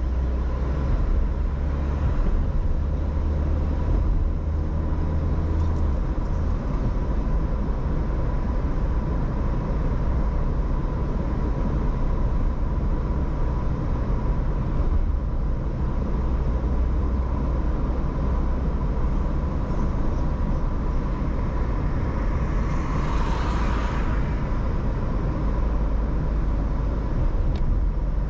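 Steady engine and road noise heard from inside a car's cabin as it drives slowly through a city, with a faint steady whine. A short hiss sounds once, late on.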